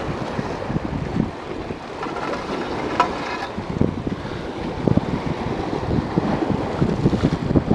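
Sea waves washing against the rocks of a jetty, with wind rushing over the microphone. A few scattered knocks, with one sharp click about three seconds in.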